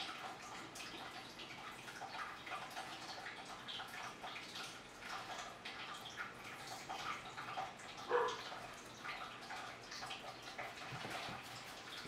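A hand rearranging a twiggy driftwood branch in an aquarium: faint, irregular rustles and small clicks of wood, with one brief squeak about eight seconds in.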